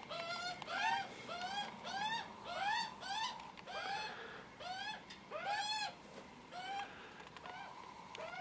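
Juvenile Australian magpies giving hungry food-begging calls: a steady run of short, squealing calls, about two a second, each rising and then falling in pitch.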